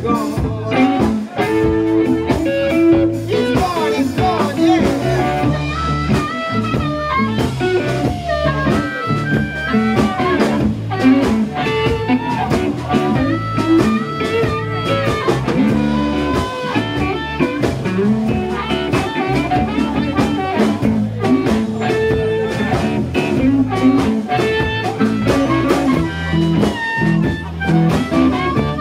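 Blues band playing live: electric guitars and an amplified harmonica blown into a cupped microphone, with bending, wailing harmonica lines over a steady groove.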